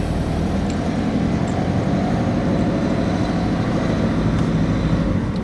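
Car driving along a street, with a steady engine hum and road noise heard from inside the cabin.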